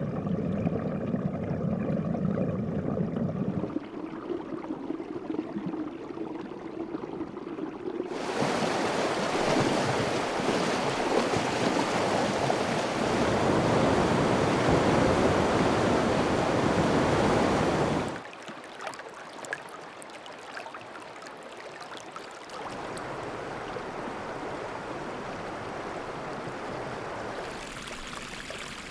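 A run of separate arctic stream and river recordings, one cutting abruptly to the next every few seconds. First comes a deep, rumbling water flow, then a lighter stream. Next is a loud, full rushing of fast water for about ten seconds, and after that a much quieter brook with small trickles and drips, then a steady moderate flow.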